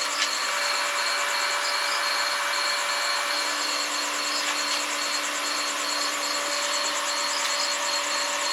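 Stick (shielded metal arc) welding arc, a steady hiss while a bead is run.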